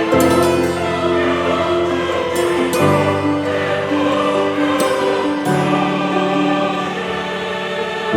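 Background music with sustained choir-like voices, the chords changing about every three seconds.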